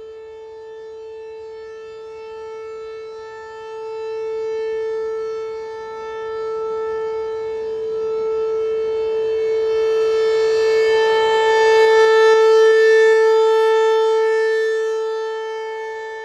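ASC T-128 rotating outdoor warning siren sounding its steady alert: one held tone with no rise or fall in pitch. It grows louder to a peak about twelve seconds in as the rotating head turns toward the listener, then fades as it turns away.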